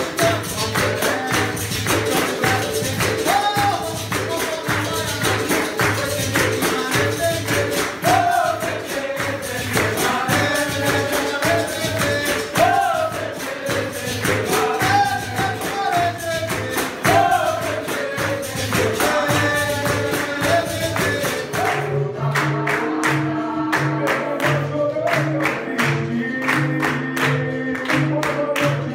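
Capoeira music from a row of berimbaus: the steel strings struck in a steady rhythm with the caxixi shakers rattling, under a singing voice. About 22 seconds in the sound changes abruptly and the berimbaus' low notes come to the fore.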